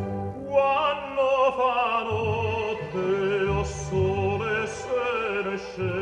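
Recorded operatic singing: a voice holding long notes with a wide vibrato over an orchestral accompaniment, with the singing entering about half a second in.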